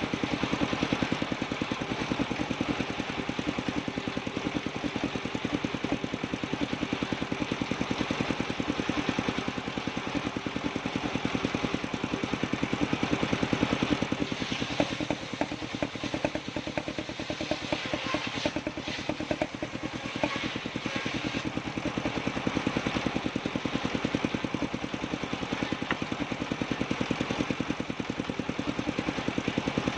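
Engine of a circular sawmill running steadily with a rapid, even firing beat, with some clatter and extra hiss in the middle stretch.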